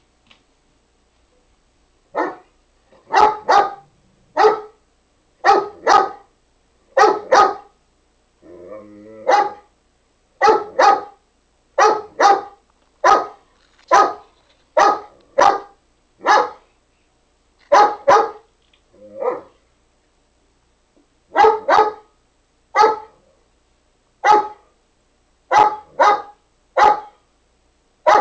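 Great Dane barking repeatedly in short, loud barks, often in quick pairs about a second apart, with a lower drawn-out growl partway through: play barking to goad another dog into playing.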